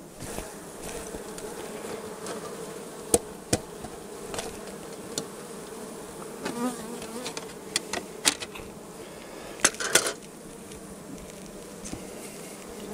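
Honeybees buzzing at the hive, a steady wavering hum. Scattered sharp knocks or taps sound over it, the loudest a close pair about three quarters of the way through.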